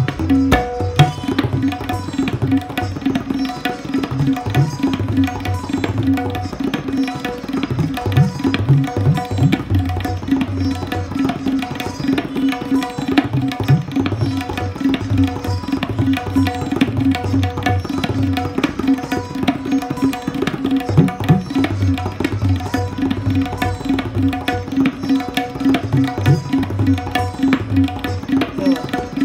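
Tabla playing a fast, dense rela of the Ajrada gharana: rapid strokes on the dayan ring at its tuned pitch over bass strokes on the bayan, a few of them bent upward in pitch.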